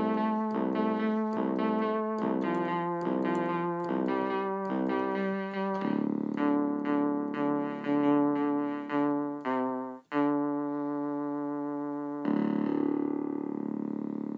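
Instrumental keyboard music, piano-like. It opens with repeated chords about twice a second, moves to longer sustained notes, and ends on a long held chord.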